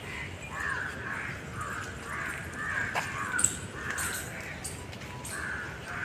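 Many birds calling over one another, short calls following each other a couple of times a second.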